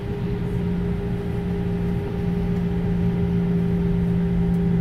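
Airbus A319's IAE V2500 jet engines running while the airliner taxis, heard from inside the cabin: a steady low drone with a hum in it, growing slightly louder about two seconds in.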